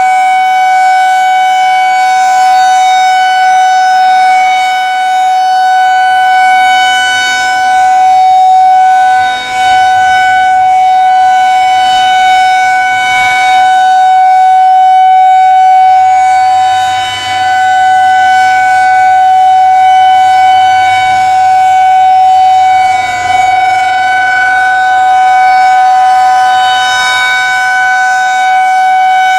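Federal Signal 2001-DC Roundback outdoor warning siren sounding a steady tone during its monthly test. It holds one unchanging pitch, with brief dips in loudness a few times.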